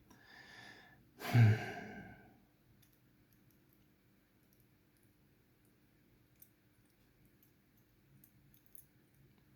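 A man's heavy sigh about a second in, voiced and falling in pitch, preceded by a softer breath. After it, only a few faint small clicks.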